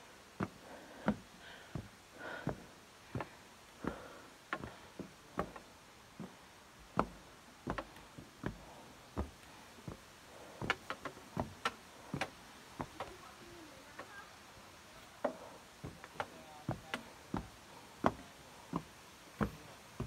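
Footsteps knocking on the treads of a steel-framed forest stairway and walkway, one step about every 0.7 s at a walking pace, coming closer together for a few seconds around the middle.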